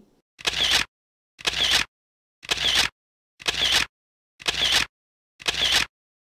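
Camera shutter sound effect repeated six times, about once a second, with silence between.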